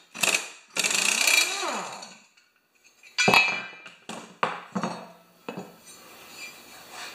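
Cordless impact wrench hammering on a lawn mower's blade bolt for about two seconds, its motor pitch rising and falling. Then one loud metal clank and several lighter clanks as the blade and its steel mounting plate are lifted off and handled.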